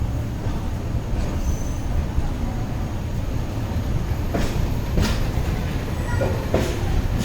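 Train moving on the track, a steady low rumble of wheels on rails, with a few sharp metallic clanks about four to five seconds in and again near the end.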